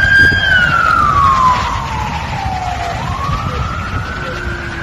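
Ambulance siren wailing: one slow tone that falls for about three seconds, then rises again, over a low rumble.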